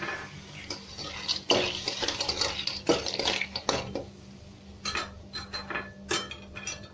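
Metal spatula stirring and scraping clams around a metal pan: irregular clinks and scrapes of shells and metal against the pan.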